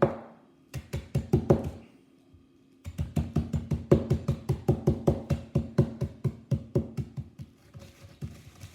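A spoon knocking rapidly against a bowl, crushing and stirring Oreo cookie crumbs, about six strikes a second, with the bowl ringing under each strike. Two short bursts, a pause of about a second, then a longer run of strikes.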